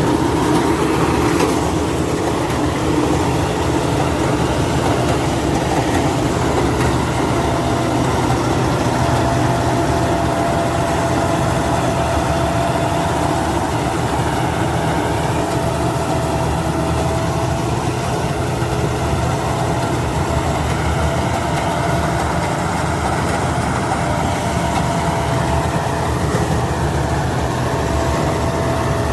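Rice combine harvester's engine running steadily, with a thin steady whine over it.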